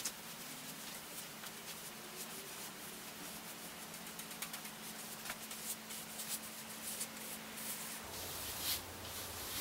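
Faint rubbing and small scattered clicks of gloved hands handling a brush and paper towel on a freshly epoxied surfboard. Under it runs a steady low hum that shifts to a lower hum about eight seconds in.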